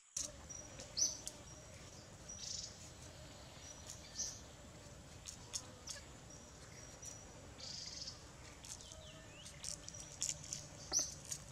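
A kitchen knife cutting through crisp green vegetable stalks held in the hand: short, crisp slicing and snapping sounds every second or two. Birds chirp in the background.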